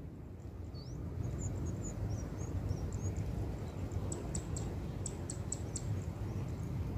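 Small birds chirping in short high calls from about a second in, some sliding up or down, with a quick run of sharp ticks in the middle. Under them runs a low steady rumble of wind.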